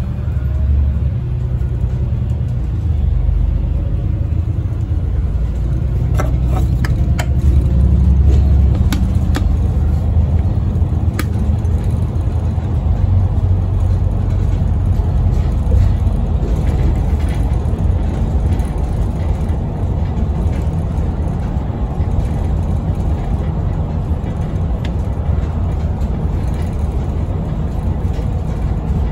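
Single-deck service bus driving along, heard from inside the passenger saloon: a steady low drone from the drivetrain and road rumble, with a few light rattles between about six and eleven seconds in.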